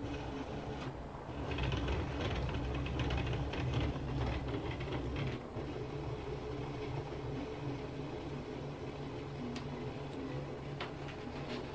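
Small homemade CNC axis running under Mach3 control: its drive motor gives a steady buzzing hum with a rattle from the moving carriage, louder for a few seconds near the start, then a few sharp clicks.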